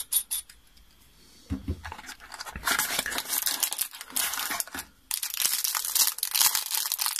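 A small clear plastic bag of atomizer spare parts crinkling as it is picked up and handled, after a soft knock about one and a half seconds in.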